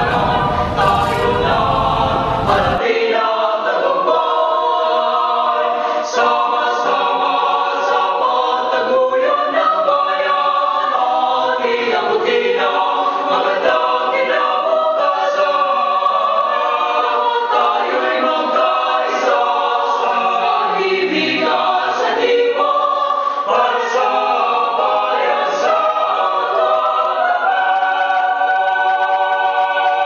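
Background music of several voices singing together in choir style. About three seconds in the sound changes abruptly and loses its deep bass.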